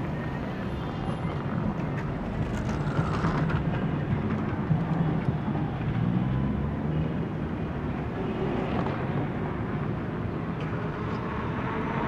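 City street traffic: cars and buses passing in fairly heavy flow, a steady mix of engine rumble and tyre noise that swells a little in the middle.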